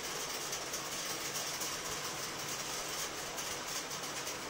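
Steady, even background hiss of room noise, with no distinct event standing out.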